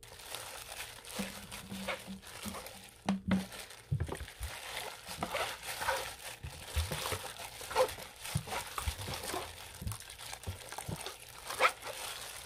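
Hand in a thin plastic glove kneading and squeezing wet fermented barley mash to strain out the swindari: irregular wet squishing with the crinkle of the glove.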